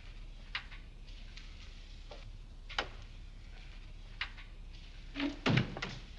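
A door opening and footsteps on a hard floor: a few sparse light clicks and knocks, with a heavier knock about five and a half seconds in, over a faint steady hiss.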